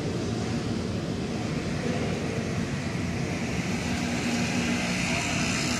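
Moving escalator running steadily: a constant mechanical hum and rumble, with a faint steady hum tone joining about four seconds in.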